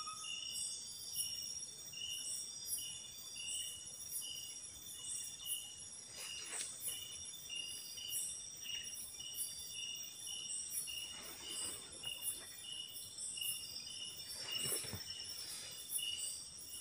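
Night insect chorus: crickets and other insects calling in steady, evenly repeating high chirps, about two or three a second. A few faint rustles come through about six, eleven and fifteen seconds in.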